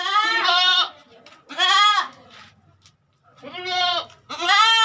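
Gulabi Pateri goats bleating: four or five calls in quick succession, each about half a second long, with a bending pitch.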